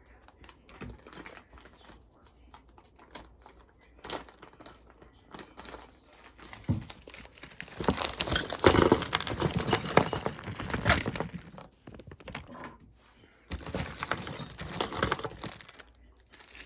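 Small metal kit parts clinking and plastic packaging rustling as parts are handled and unwrapped: scattered light clicks at first, then two longer spells of dense rattling and crinkling, one in the middle and a shorter one near the end.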